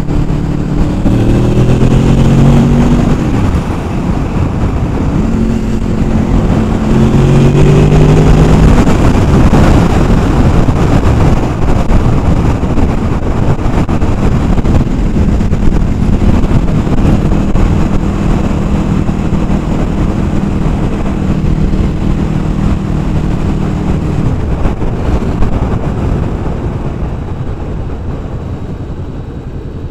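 Honda VFR800 Interceptor's V4 engine pulling under way: the engine note rises for the first few seconds, drops, rises again, then holds steady for several seconds and eases off near the end. Wind rush on the microphone runs underneath.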